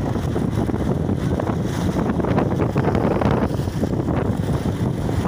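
Wind buffeting the microphone at riding speed, with motorcycle engine noise running beneath it.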